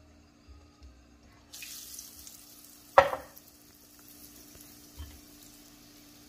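Hot cooking oil starts sizzling suddenly as a battered slice of fruit or vegetable is laid in the pan, and keeps up a steady sizzle. One short, loud sound stands out about three seconds in.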